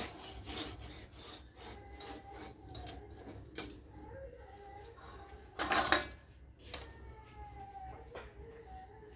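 Scales of a large hilsa fish being scraped off against a bonti blade: quick rasping strokes, then a louder crunching cut about six seconds in as the head is severed, followed by a few lighter scrapes and knocks.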